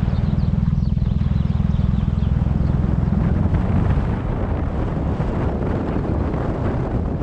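Subaru WRX's turbocharged flat-four engine running with a steady low rumble, which thins out about three and a half seconds in, with wind buffeting the microphone.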